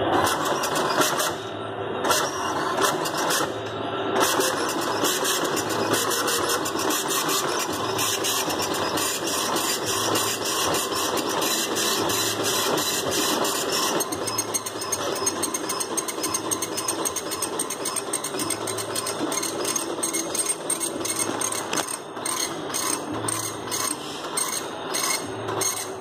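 Oki Microline ML4410 dot-matrix printer printing on continuous fanfold paper. The impact print head rattles rapidly as it sweeps across each line, repeating line after line in an even rhythm.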